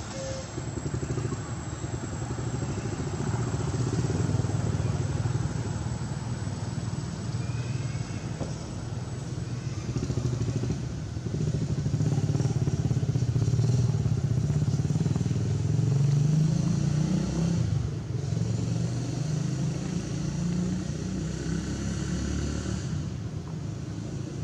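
A motor engine running, building up over the first few seconds, loudest through the middle and easing off near the end.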